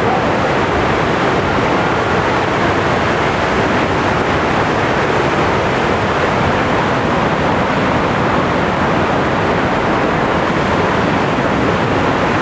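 Steady, loud rushing of a river pouring down a waterfall into a gorge.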